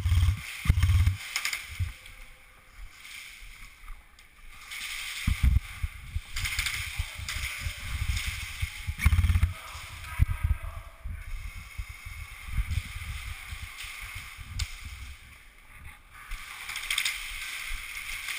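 Irregular low thuds and rustling from a camera-wearing player moving through an indoor airsoft course, with a few faint sharp clicks.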